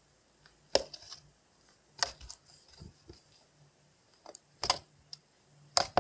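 Slime with pigment mixed in, being squeezed and stretched by hand, giving a handful of sharp clicks and pops about a second or so apart.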